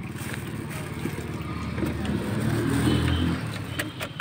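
A Nissan AD Van's engine running with a steady low pulse. It grows louder about two seconds in and drops back after about a second, and a sharp click comes at the very end.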